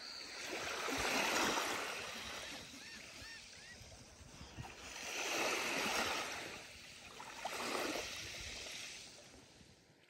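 Small waves of a calm sea washing up on a sandy, shell-strewn beach: three gentle swells of surf, about a second in, about five and a half seconds in and near eight seconds, each rising and fading over a couple of seconds.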